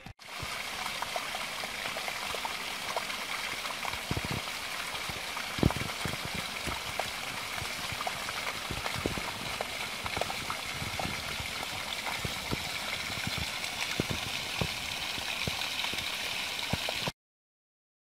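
A small rocky mountain stream rushing and splashing over stones: a steady rush of water with scattered sharper splashes. It cuts off suddenly near the end.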